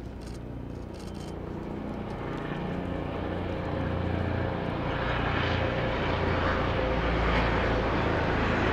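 Steady low engine-like rumble that grows gradually louder.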